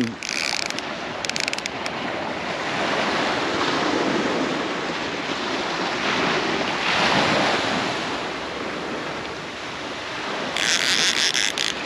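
Surf washing up on a beach in swells, with some wind on the microphone. Near the end, a high rasping whirr of a spinning fishing reel being wound while fighting a fish.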